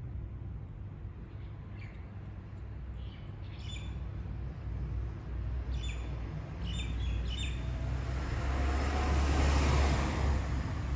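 Street ambience: small birds chirping now and then, over a steady low rumble of traffic. Near the end a passing vehicle swells up to its loudest and fades.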